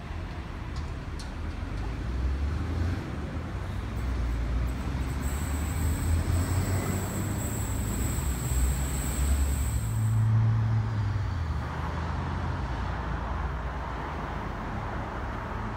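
A Sydney Trains Oscar (H set) double-deck electric train running past along the platform: a low rumble, with a steady high whine for a few seconds in the middle. About ten seconds in the sound changes to a steadier low hum from a train approaching in the distance.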